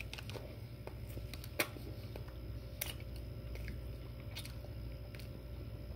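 A man biting into and chewing a soft breakfast sandwich on a cinnamon-roll bun, heard close up: scattered wet mouth clicks and smacks, the sharpest about a second and a half in, over a low steady hum.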